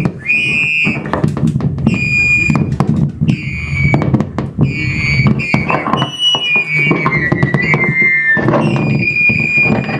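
Loud amplified noise music: distorted crackling and clattering through effects, with high electronic squeals that hold briefly and repeat. One squeal slides down in pitch near the end.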